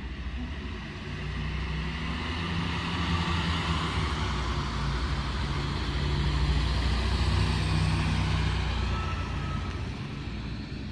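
Diesel multiple unit (Siemens Desiro Classic type) passing close by on the station track. Its underfloor diesel engine drones low, with wheel-on-rail hiss, growing louder as the cars go by about six to eight seconds in, then fading.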